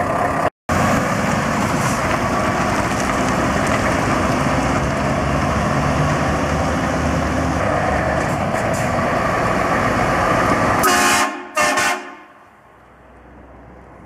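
Heavy truck's diesel engine running loudly and steadily. About eleven seconds in, a truck horn gives two short blasts, and then the sound drops away to a faint wind hiss.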